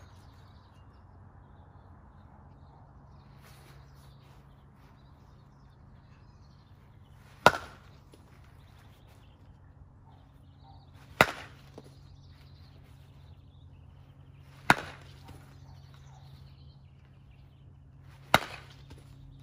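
A baseball bat hitting tossed balls four times, about three and a half seconds apart: short, sharp cracks, each with a brief ring after it. A faint, steady low hum runs underneath.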